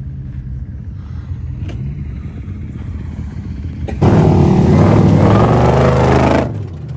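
A vehicle engine runs low and steady. About four seconds in, a much louder engine with a rushing noise comes in abruptly and lasts about two and a half seconds.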